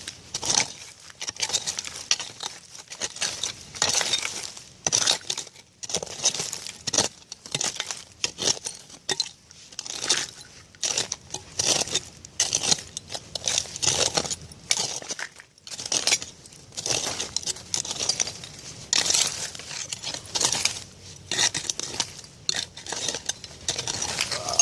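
Glass clinking and scraping in irregular strokes as soil full of old bottles and broken glass is dug through.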